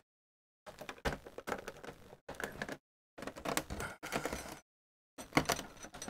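Plastic rear cover of an HP all-in-one PC clicking and scraping as a nylon pry tool is worked into its seam to release the clips. The sound comes in four short bursts of crackly clicks.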